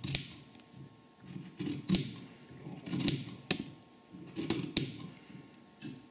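Large dressmaking shears cutting through layers of fabric in a series of separate snips, about one a second, each a sharp crunch with a short hiss.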